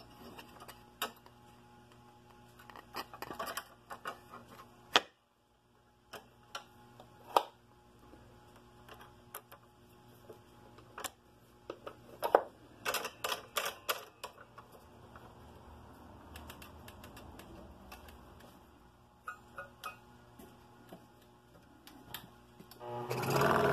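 Scattered clicks and small knocks from handling a stopped scroll saw and workpiece: the blade is threaded through a drilled entry hole and clamped in the saw's upper blade holder.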